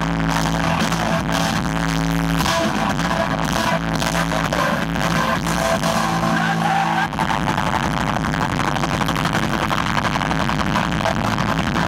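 Live rock band playing loud through a concert PA, heard with the recording distorting. Held keyboard-like chords give way to a denser full-band sound about seven seconds in.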